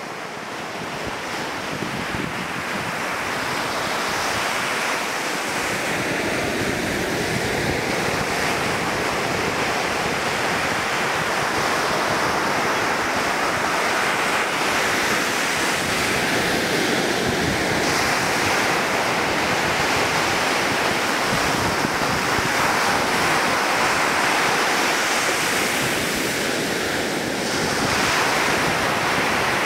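Ocean surf: waves breaking and washing in as a steady rushing noise, fading up over the first few seconds.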